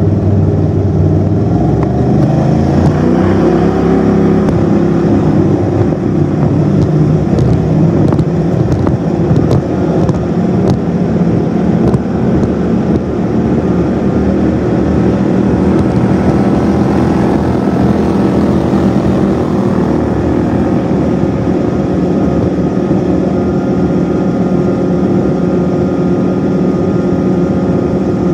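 Turbocharged Mud Buddy 5000 surface-drive mud motor pushing a boat, revving up and accelerating over the first few seconds, then running steadily at top speed, about 42 mph.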